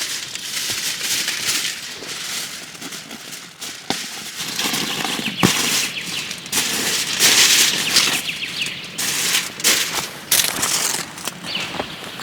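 Wood fire crackling, with many sharp irregular pops over a hiss that swells and fades.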